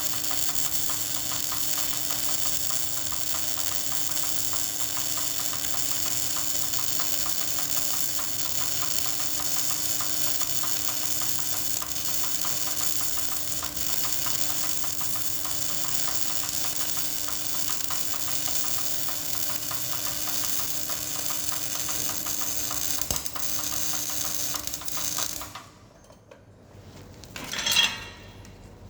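Welding arc running steadily on a vertical-position (3G) weld, a dense even crackle with a steady hum beneath it. The arc cuts off abruptly near the end, and a single sharp metallic clink follows.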